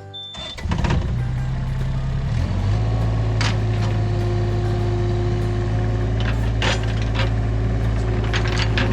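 Engine of a small earth-moving machine comes in loud about half a second in and runs steadily, with scattered clanks and knocks from the machine at work.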